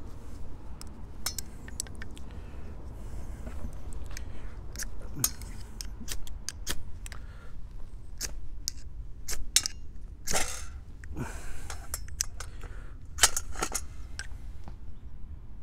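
Ferro rod being struck over a Trangia alcohol burner filled with denatured alcohol: an irregular run of short, sharp scrapes, with longer, louder strokes about ten seconds in and again near the end, until the fuel catches.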